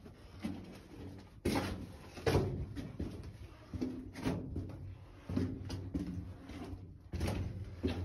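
Footsteps crunching on loose rock and gravel in a narrow mine tunnel, a slow walking pace of about one step a second, with a close, boxy echo.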